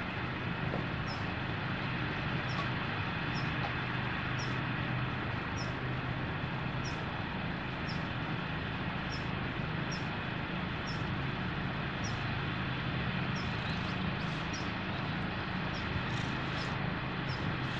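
Steady outdoor background noise, with a faint short high chirp repeating about every three-quarters of a second.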